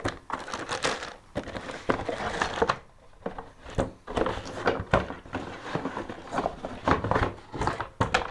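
Clear plastic packaging bags crinkling and rustling as they are handled and pulled out of a cardboard box, with a few sharper knocks and taps among them.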